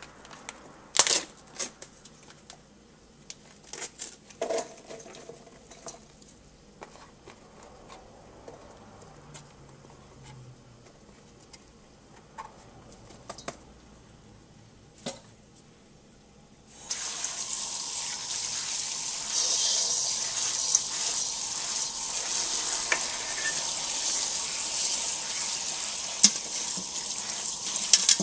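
Sliced mushrooms handled in a metal colander at the sink, with a few light knocks and clatters. About 17 seconds in, a kitchen tap is turned on and water runs steadily into the colander, rinsing the mushrooms.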